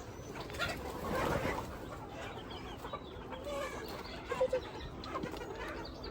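Chickens clucking, with scattered short calls from the flock, and a brief louder burst of noise about a second in.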